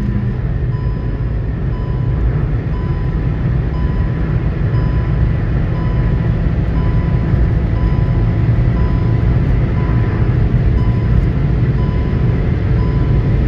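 Cabin sound of a Hyundai Grand i10 Nios driven flat out at high speed. There is a steady engine drone with road and wind noise, growing slowly louder. Over it the speed-warning chime beeps steadily, a little faster than once a second; it sounds because the car is above the 120 km/h alert limit.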